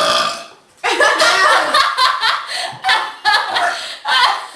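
A short loud burst right at the start, then laughter in a quick run of short bursts.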